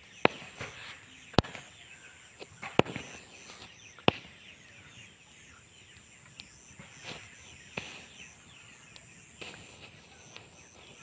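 Firecrackers burning in a small fire on the ground: irregular sharp cracks, the four loudest about a second apart in the first four seconds and fainter ones after, with crackling and fizzing between them.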